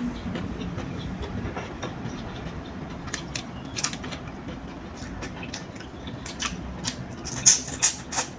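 Close-up eating sounds: chewing with wet mouth clicks and smacks, and the crackle of cooked shrimp shells being pulled apart by hand. A quick run of loud smacks comes near the end as a shrimp goes to the mouth.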